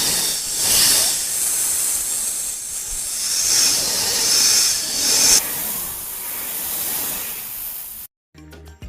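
A snake hissing: a long, breathy hiss that swells and eases several times and then cuts off suddenly about eight seconds in.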